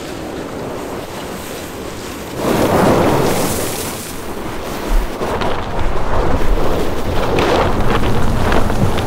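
Rivian R1T's tyres spinning and sliding on loose gravel and dirt, throwing up a spray of stones: a loud rush about two and a half seconds in, a thump near five seconds, then steady rumbling and crackling of tyres and stones.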